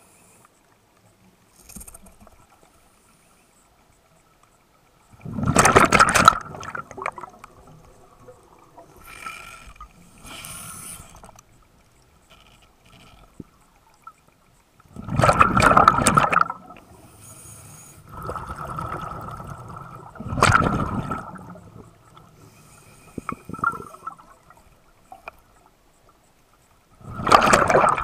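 Scuba diver breathing through a regulator underwater: four loud rushes of exhaled bubbles, five to ten seconds apart, with a quieter hiss between them.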